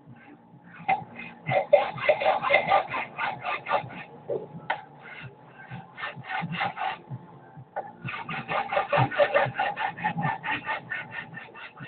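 Rapid back-and-forth scraping strokes of a hand tool on a hard surface, several a second, in two runs with a short lull about two-thirds of the way through.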